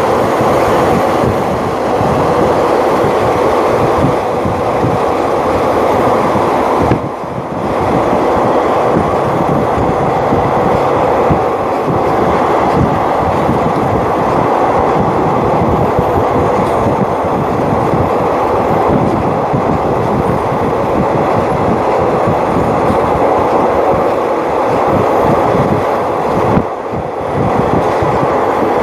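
Passenger train running along the line, heard from inside a carriage: a steady rumble and rattle of wheels on rails. The noise dips briefly about seven seconds in and again near the end.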